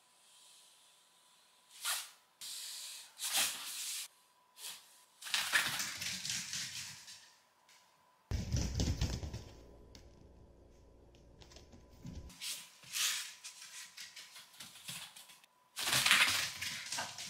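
A Shiba Inu's claws clattering and scrabbling on the floor in uneven bursts as she runs and skids after a thrown ball, with scrapes and a longer rumbling stretch of thumps partway through.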